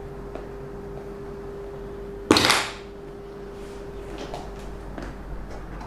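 Clip-on lapel microphone being handled: one short, loud rustling knock about two seconds in, then fainter rustles, over a steady hum.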